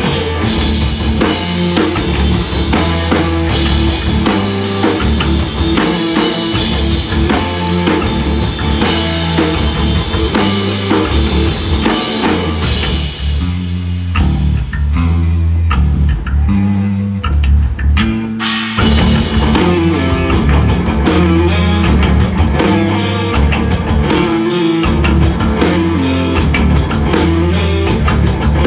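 Live rock band with two electric guitars, electric bass and drum kit playing an instrumental passage with no vocals. About halfway through, the drums and cymbals drop out for roughly five seconds, leaving bass and guitar, then the full band comes back in.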